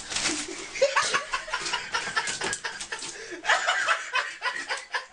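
A person laughing in short, repeated bursts.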